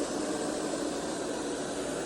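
eufy RoboVac 11S Max robot vacuum running, a steady whir of its suction motor with an even hum.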